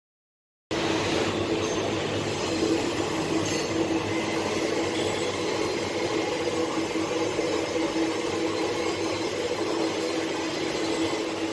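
Intensive rotor foundry sand mixer running: a steady machine noise with a constant hum, cutting in abruptly just under a second in.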